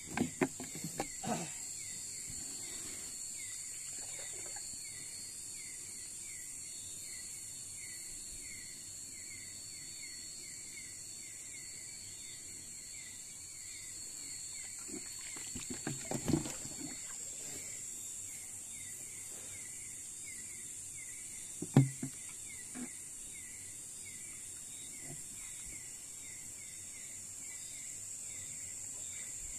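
Night insect chorus: a steady high buzz with a quick, regular chirping beneath it. A few dull knocks or splashes break in, a cluster near the start, another around the middle and a single sharp one about two-thirds of the way through.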